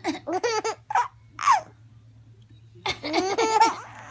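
Baby laughing in short giggling bursts, including a high squeal that falls in pitch; after a pause of about a second, a fresh bout of laughter starts near the end.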